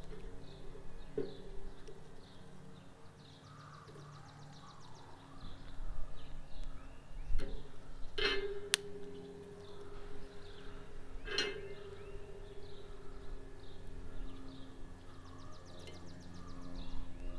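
Sticks and wood knocking against a steel fire-pit bowl while a fire is rebuilt: a few sharp knocks, two of them, about eight and eleven seconds in, leaving the metal bowl ringing. Birds chirp and trill throughout.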